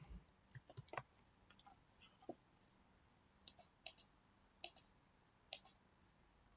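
Near silence broken by faint, irregularly spaced clicks of a computer keyboard and mouse as text is typed and formatting buttons are clicked.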